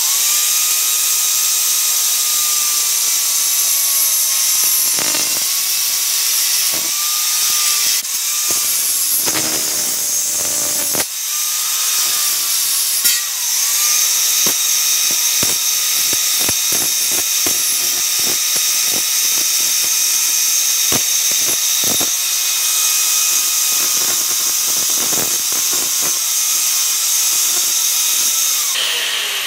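Angle grinder cutting through thin steel Unistrut channel, a loud continuous grinding with the motor's whine wavering as the disc bites into the metal. Near the end it is switched off and starts to wind down with a falling whine.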